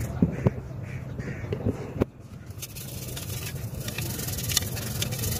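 Toothbrush bristles scrubbing inside a stainless-steel car exhaust tip, with scattered scrapes and a few sharp clicks. The loudest click comes about two seconds in.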